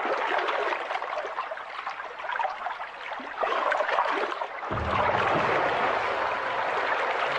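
River water splashing and lapping around people wading neck-deep, a steady rushing wash, with a deeper rumble joining about two-thirds of the way through.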